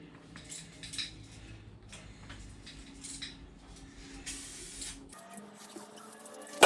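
Aerosol spray can of primer-filler spraying in a string of short hissing bursts, with one longer burst about four seconds in.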